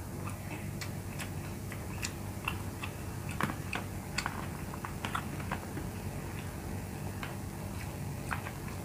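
Eating sounds: irregular light clicks and taps, busiest in the middle, over a steady low hum.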